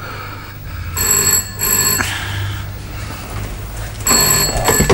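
Desk telephone bell ringing for an incoming call in the double-ring pattern: two short rings close together, about a second in and again about four seconds in.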